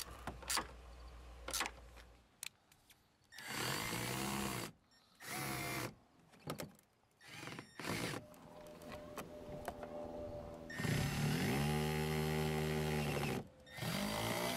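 Milwaukee cordless drill/driver running in several short bursts, its motor speeding up and slowing down with the trigger as it drives screws back into the door panel. A few sharp clicks come in the first couple of seconds.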